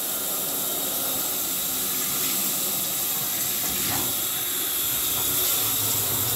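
Shower running: a steady hiss of water spraying into the tub, with a low hum joining about five and a half seconds in.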